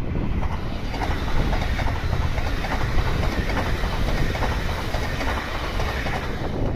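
Tobu 70000 series electric commuter train passing close by with a steady running noise and its wheels clattering over the rail joints. Wind rumbles on the microphone underneath.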